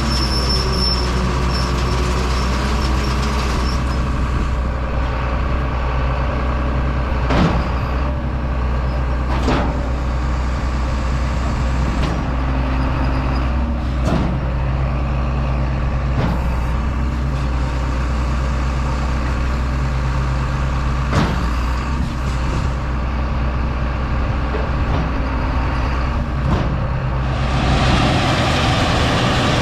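Heavy diesel engine of cotton harvesting machinery running steadily, with several sharp clanks along the way. Near the end the low engine hum drops away and a higher rushing noise takes over.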